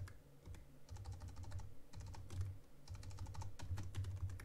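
Typing on a computer keyboard: quick runs of key clicks with brief pauses between them, as a name is typed into a text field.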